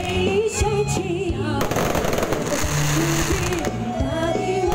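Music with a melody over held bass notes plays loudly, mixed with the bangs and crackle of aerial fireworks bursting, a few sharper bangs standing out.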